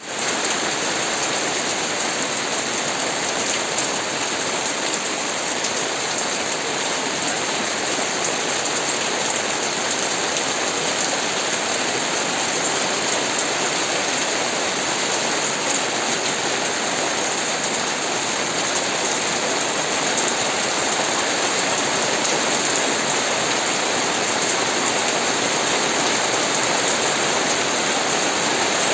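Steady rain falling, an even hiss that fades in at the very start and then holds constant.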